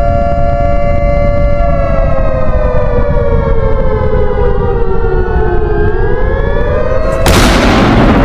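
Emergency alert alarm tone: a loud, steady two-note siren chord that slowly slides down in pitch, then climbs back up. About seven seconds in, a burst of loud static cuts across it, with a grainy low rumble underneath throughout.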